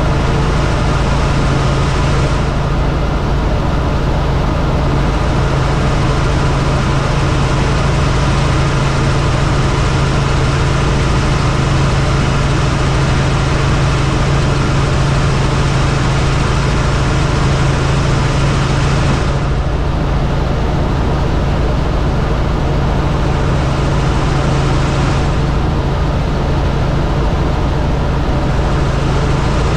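Helicopter in flight: a loud, steady drone of engine and rotor, a constant deep hum over rumble and hiss.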